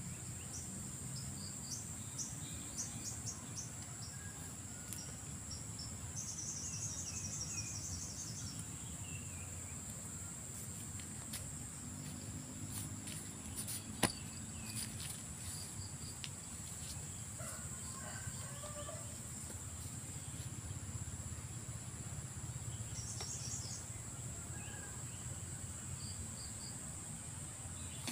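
Insects chirring steadily in a high-pitched, unbroken trill, with a few short bird chirps and a single sharp click about halfway through.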